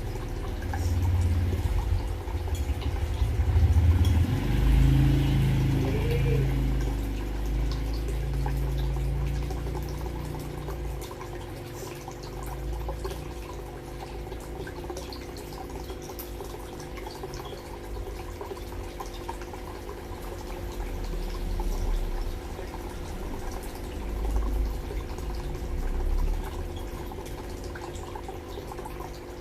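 Water running and dripping into ornamental fish tanks, as from filter or aerator outflows, over a steady hum. There is heavier low rumbling through roughly the first ten seconds.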